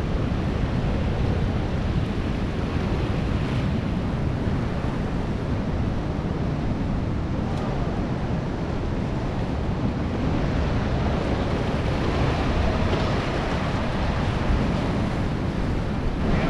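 Steady wash of rough surf mixed with wind buffeting the microphone, a continuous noise heavy in the low end.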